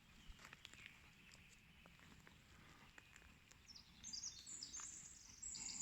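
Mostly near silence with faint scattered crackles of brush. About four seconds in, a bird starts singing in high, quick chirps.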